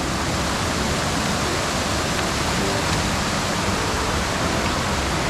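Steady, unbroken rush of fast-flowing water, like a waterfall or snowmelt torrent.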